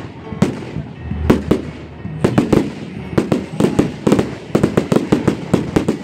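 Aerial fireworks bursting, sharp bangs and crackles in quick succession that come thicker and faster from about two seconds in, several a second.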